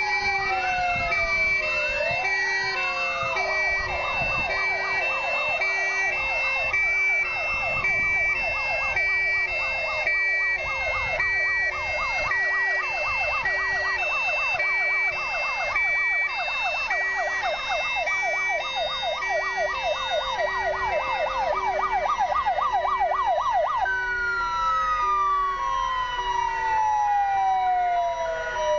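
Several fire engines' sirens sounding at once. Slow rising and falling wails overlap a fast yelping siren that stops about three quarters of the way through, while a two-tone hi-lo siren alternates steadily.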